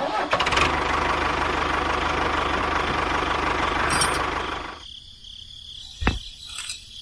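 Tractor engine running with a rapid steady chug, fading out about five seconds in. About a second later comes a single short knock as a pin drops into the trolley hitch.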